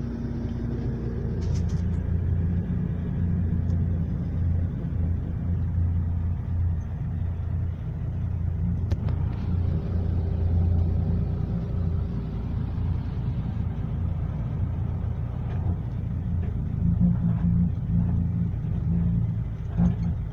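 Truck diesel engine running steadily, heard from inside the cab as a deep, even drone, with a few short knocks and rattles.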